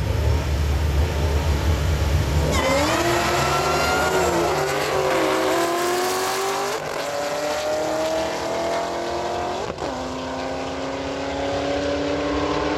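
Two supercharged Pontiac GTOs rumbling deeply at the line, then launching about two and a half seconds in and accelerating hard down the drag strip. The engine pitch climbs and drops back at each gear shift.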